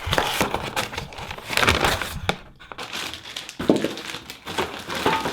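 Packaging rustling and crinkling as flat-pack table parts are unpacked and handled, with a sharp click about two-thirds of the way through.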